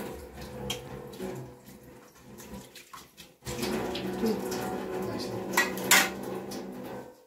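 Kitchen tap running into a sink while a metal plate is washed under it; the water gets louder about halfway through. Two sharp metal clanks of the plate come near the end.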